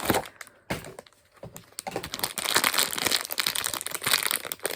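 Packaging of a small blind box being torn open by hand: a few sharp rips in the first second, then continuous crinkling and rustling from about two seconds in.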